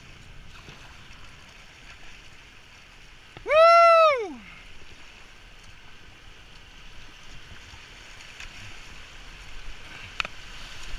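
Whitewater rapids rushing steadily around a kayak, with one loud high whoop from a person's voice about three and a half seconds in, rising slightly then falling away in pitch over about a second.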